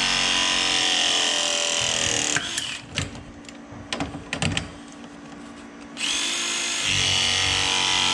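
Battery-powered hydraulic press tool crimping a press fitting: its motor runs with a whine that slowly drops in pitch as the jaws close. It stops about two and a half seconds in, a few clicks follow, and about six seconds in the motor starts again for the next press.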